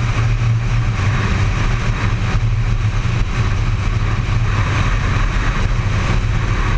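Honda CBR600 sport bike's inline-four engine running at a steady cruising speed on the highway, heard from the rider's seat. Wind rushes over the camera microphone along with the engine.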